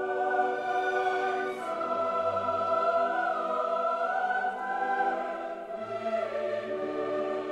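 Slow background music of sustained, choir-like voices holding chords, shifting to new chords twice.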